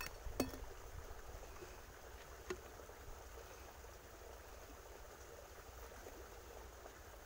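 Two short, sharp knocks about two seconds apart as a small stationary diesel engine and its flat drive belt are handled, over a faint steady low rumble.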